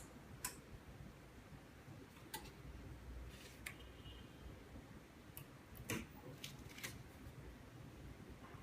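A few light, sharp clicks and taps, about half a dozen spread out, from small tools and parts being handled during hand work on a phone LCD, over a faint room hum.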